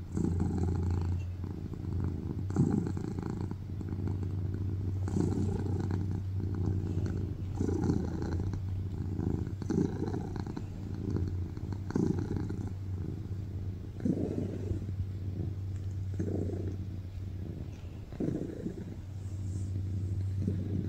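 A long-haired tuxedo cat purring loudly while being stroked on a lap. The purr is continuous and swells and fades in a slow rhythm, about every two and a half seconds.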